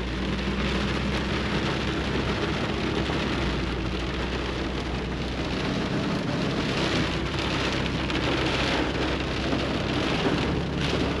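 Rain pattering on a moving pickup truck's cab and windshield, heard from inside the cab, with a steady low hum of the engine and road noise underneath.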